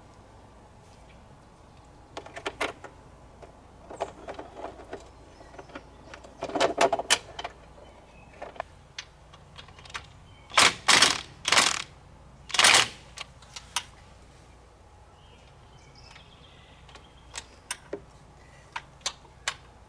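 Tool driving T40 Torx bolts into the Can-Am's plastic underbody cover: scattered clicks and knocks of tool and parts, then four short, loud clattering bursts about halfway through as the bolts are run in, and a few light clicks near the end.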